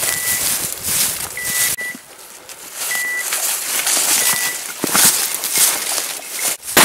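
Footsteps and dry oak brush and leaves rustling as a hunter pushes through scrub. Over this come short, high, steady electronic beeps every second or so, from a hunting dog's beeper collar. A sudden loud knock comes at the very end.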